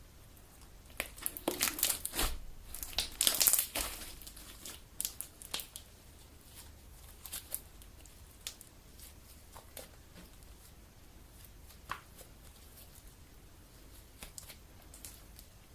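Homemade Elmer's galaxy slime being kneaded and squeezed by hand, popping and crackling. A dense run of crackles comes in the first few seconds, then scattered single pops.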